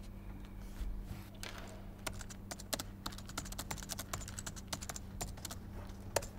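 Typing on a computer keyboard: irregular runs of quick keystroke clicks, with one sharper click near the end, over a steady low hum.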